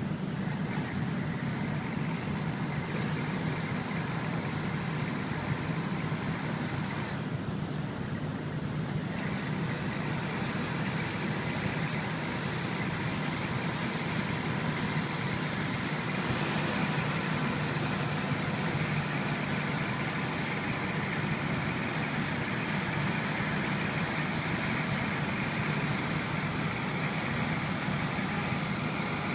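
Steady low engine rumble of a boat under way, with a constant hiss of water and wind over it.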